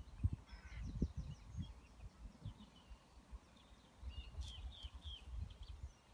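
Irregular low thumps and rumble on the microphone, loudest about a second in, with small birds chirping in the background: a quick run of notes early and a few chirps a little after the four-second mark.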